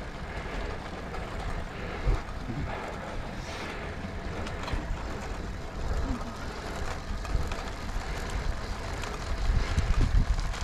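Wind buffeting the microphone and road noise while riding a road bike, a steady rumbling rush that turns gustier and louder near the end.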